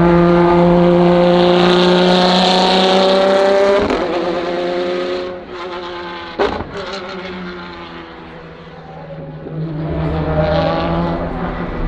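Lamborghini V12 track car accelerating hard past at full throttle, its engine note climbing steadily for about four seconds, then breaking off at a gear change or lift and fading as the car pulls away, with one sharp pop about six and a half seconds in. Near the end, another car's engine rises as it approaches.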